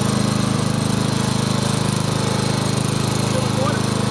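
Riding lawn mower engine running steadily at a constant speed as the mower is driven along.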